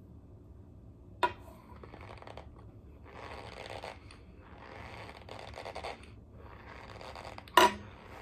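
Corn starch squeaking and crunching in several drawn-out bursts of about a second each, the squeak it gives when pressed and crushed. Two sharp clicks, one about a second in and a louder one near the end.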